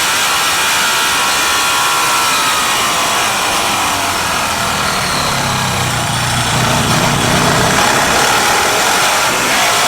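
Racing motorcycle engines at high revs, the pitch rising and falling with throttle and gear changes; a deeper engine note swells in the middle and fades again.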